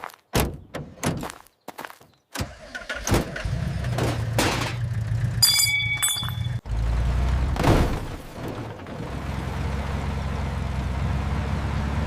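A series of sharp knocks, then a vehicle engine running with a steady low hum, with a few swishes and a short ringing tone passing over it.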